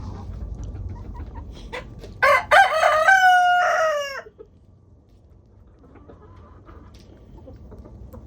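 A rooster crows once, a loud call of about two seconds starting a couple of seconds in and dropping in pitch at the end, among the soft clucking of the flock.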